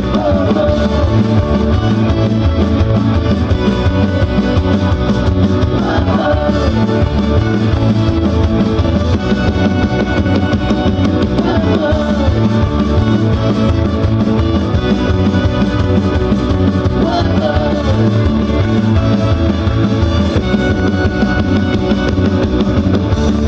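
Live band music: drum kit, guitar and bass playing an instrumental passage at a steady beat, with a falling melodic phrase about every six seconds.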